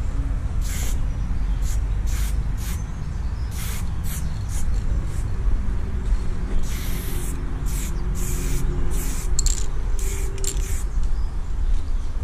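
Aerosol spray paint can being sprayed onto a wall in a series of about a dozen short hisses, a few held longer near the middle, over a steady low rumble.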